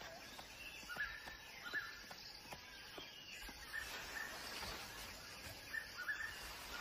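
Faint forest ambience with short bird chirps repeating every second or so, and a few faint ticks.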